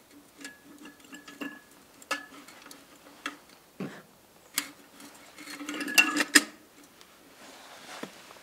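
A tin hurricane lantern being handled: small metal clicks and clinks from its wire bail and glass globe, with a brief ringing clink early on and the loudest pair of clinks about six seconds in.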